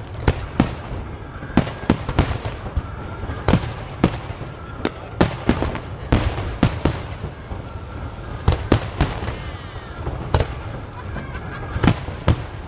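Fireworks display: aerial shells bursting in an irregular run of sharp bangs, roughly one to two a second, over a steady low rumble.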